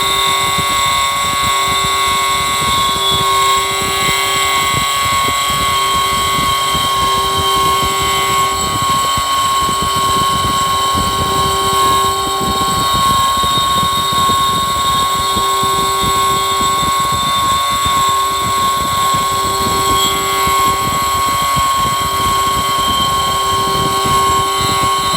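Metal lathe running and taking a 15-thou cut while a stepper motor drives the leadscrew to power-feed the carriage. A steady high-pitched whine under cutting noise, with a lower tone that comes and goes about every second and a half.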